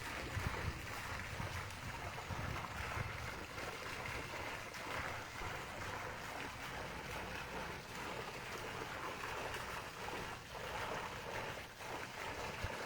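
A steady rushing background noise with a few faint knocks scattered through it.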